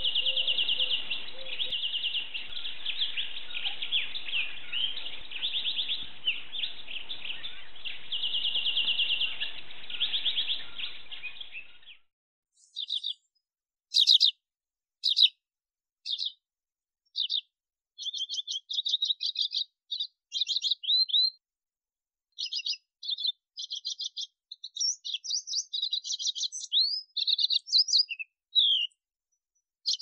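Syrian serin singing a continuous fast, high twittering song for about the first twelve seconds. Then a Tibetan serin gives short high chirps and brief twittering phrases with gaps of silence between them.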